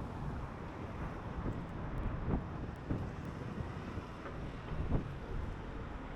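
Steady city street ambience: a low rumble of traffic with wind on the microphone, and a few soft knocks.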